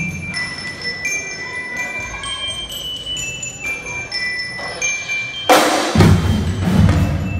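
A slow melody of high, bell-like struck notes rings out one at a time. About five and a half seconds in, the marching drum line comes in with a cymbal crash and loud bass and snare drumming.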